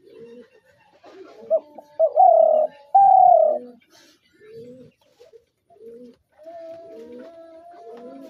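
Spotted dove cooing: a series of low, soft coo notes, two of them loud and drawn out a couple of seconds in, then quieter notes.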